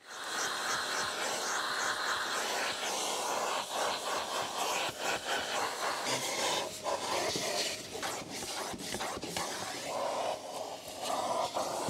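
Vacuum cleaner running, its crevice nozzle sucking over an Alcantara car seat and down along the seat rail. The hiss comes on abruptly and rises and falls as the nozzle moves and presses against the upholstery.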